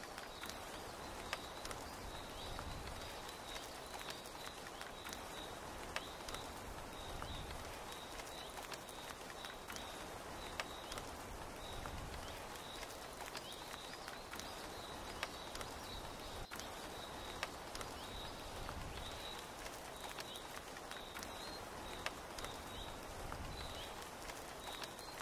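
Steady rain pattering on a canvas tent, with sharp drip ticks every few seconds, and a rainforest animal giving short high chirps over and over.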